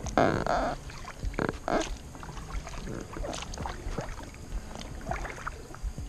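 Kayak paddle strokes: the blades dip and pull through the water with splashing and dripping, loudest right at the start.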